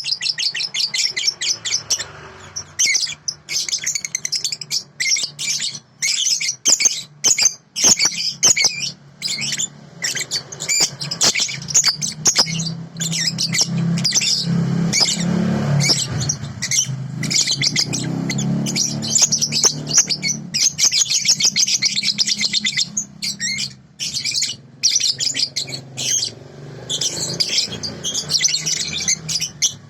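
Young songbird under five months old (a 'balibu') singing a fast, continuous string of high chirps and twitters, with brief pauses. Beneath it runs a low steady hum that grows louder in the middle.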